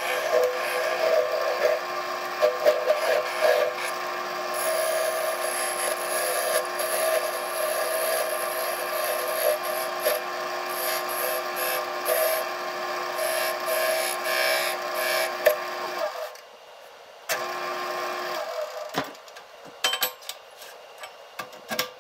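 Wood lathe running with a steady hum while a turning tool cuts and scrapes a spalted cherry goblet stem. About sixteen seconds in the cutting stops, comes back briefly, and the lathe winds down, leaving a few sharp clicks and knocks near the end.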